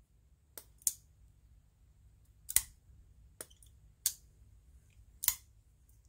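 Sencut Sachse button-lock pocket knife being worked open and shut, the blade and button lock snapping with sharp metallic clicks, about six of them at uneven intervals.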